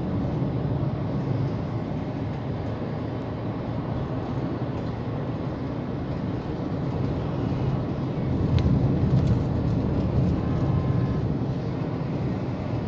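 Steady engine and tyre noise heard from inside a moving car on a highway, swelling a little about eight seconds in.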